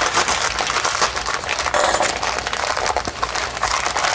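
Paper wrapping on a shipping package crinkling and rustling as it is pulled open by hand, a dense run of crackles.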